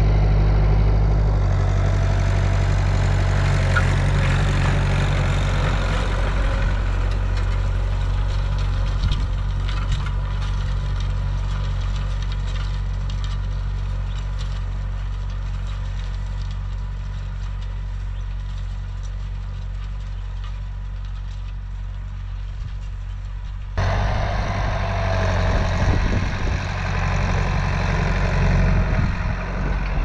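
Massey Ferguson 390 tractor's four-cylinder diesel engine running steadily as it pulls disc harrows across ploughed ground, loud at first and slowly fading as it works away. About 24 seconds in the sound cuts abruptly to the tractor loud and close again.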